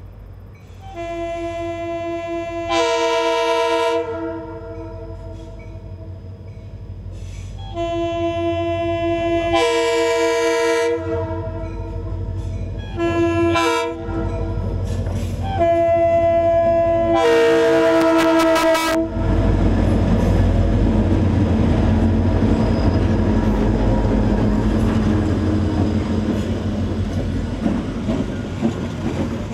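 Diesel freight locomotive's multi-note air horn sounding the grade-crossing signal: long, long, short, long. Then the locomotives pass close with a loud diesel rumble, followed by the clickety-clack of freight cars rolling over the crossing.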